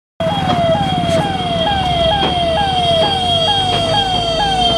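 Electronic siren sounding a falling tone that repeats about twice a second, with a steady high-pitched tone held beneath it.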